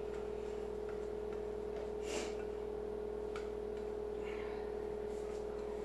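Spatula scraping sticky bread dough out of a glass bowl: a few faint scrapes and light taps, one a little louder about two seconds in, over a steady hum.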